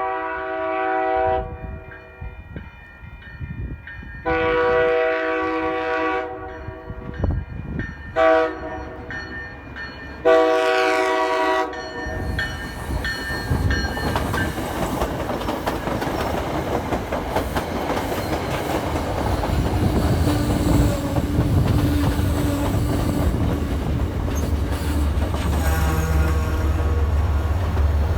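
MBTA commuter train sounding its horn in the grade-crossing pattern: long, long, short, long. It then passes close by with a rising rumble and wheels clicking over rail joints, and a loud low diesel drone comes in near the end.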